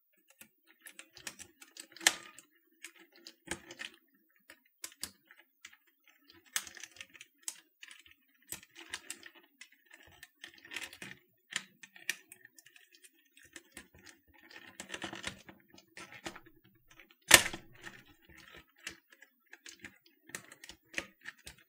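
Plastic keycaps being pushed and snapped onto the clicky SMK keyswitches of a Canon TypeStar 4 typewriter keyboard: irregular small clicks and clacks, with one much louder snap late on.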